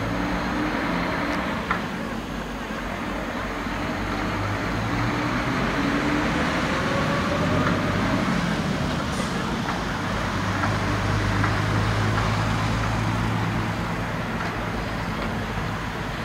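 A motor vehicle's engine running over steady traffic-like background noise, its note rising in pitch about five seconds in.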